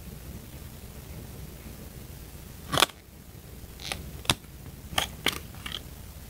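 Handling noise from a small cosmetic cream jar being turned in the fingers: a short crackling rustle about three seconds in, then several light clicks and taps.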